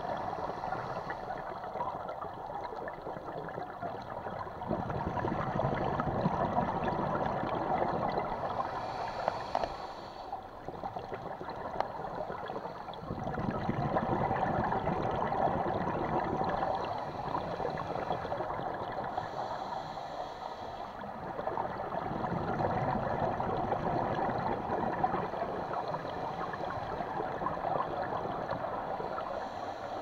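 Underwater bubbling and gurgling that swells and eases every several seconds, with a brief higher hiss twice, about nine and twenty seconds in.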